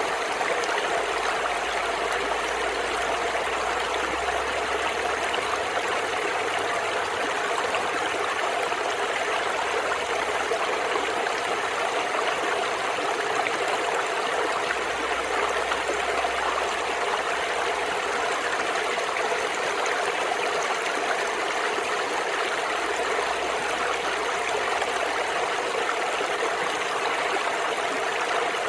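Shallow brook flowing steadily over stones, a continuous babbling and gurgling of water.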